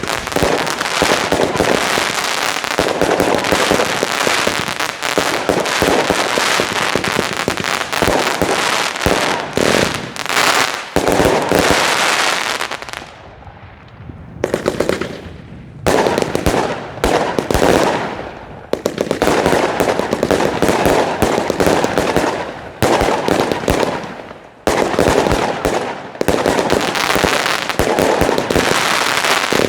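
A 300-shot fireworks cake (Wolff Sledgehammer) firing a rapid, dense run of shots, one bang after another. About halfway through comes a short lull before the barrage picks up again.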